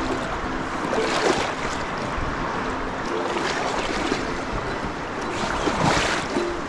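Swollen, fast-flowing river rushing steadily over its rocky bed, rising in brief surges about a second in and again near the end.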